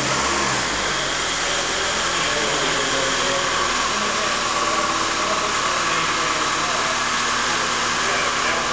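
Linde counterbalance forklift's engine running steadily as the truck manoeuvres at low speed, under a dense steady noise. A deeper engine note fades away in the first half second.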